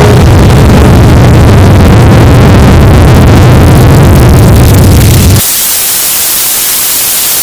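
Deliberately over-amplified, clipped audio: a harsh, bass-heavy wall of distorted noise with no recognisable melody. About five seconds in it cuts abruptly to a steady, loud hiss of white-noise static.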